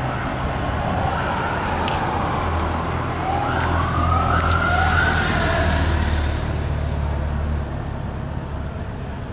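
Siren of a passing police escort vehicle, wailing up and down in pitch and loudest about four to six seconds in, over the low hum of vehicle engines going by.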